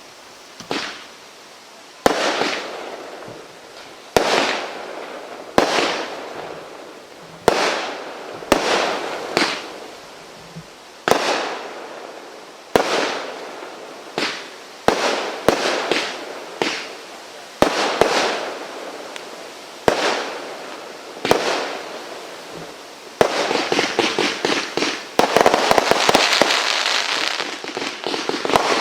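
Fireworks going off in a series of sharp bangs about every second and a half, each fading out in a hiss. From about 23 seconds in the bangs give way to dense, continuous crackling.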